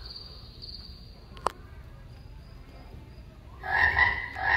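Night-ambience sound effects from a recorded soundtrack: a steady high cricket chirring, a single sharp click about one and a half seconds in, then two loud frog croaks near the end.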